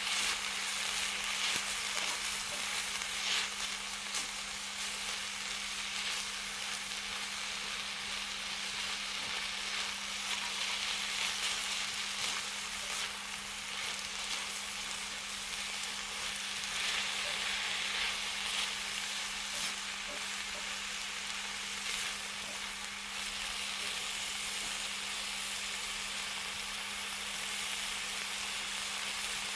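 Food sizzling steadily on a hot cooking surface over a fire, with scattered crackles.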